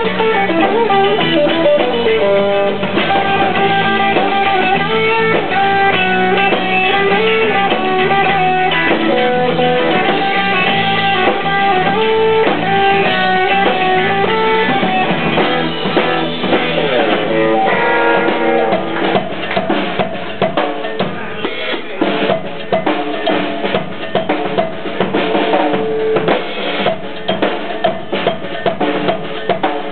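Live rock band with a loud electric guitar solo of held and bending notes over drums and bass. About two-thirds of the way in it gives way to a drum solo on the kit: rapid snare, bass drum and cymbal strikes with little melody left.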